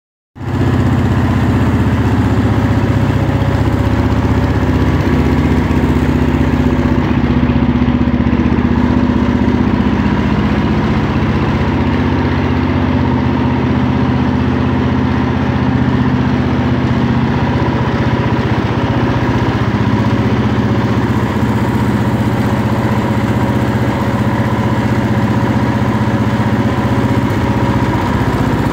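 Wheel Horse C-160 garden tractor's Kohler single-cylinder engine idling steadily, with no revving.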